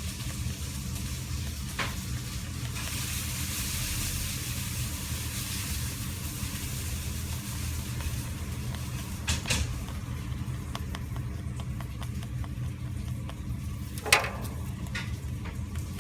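A pet rabbit sneezing, a few short sharp puffs with the loudest near the end, over a steady low hum.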